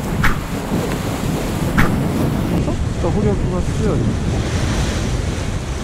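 Sea waves washing against shore rocks, with wind buffeting the microphone. Two brief sharp sounds stand out in the first two seconds.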